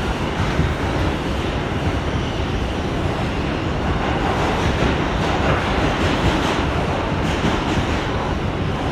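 Steady running noise of an R142 subway car in motion, heard from inside the car: the rumble and rattle of its wheels on the rails.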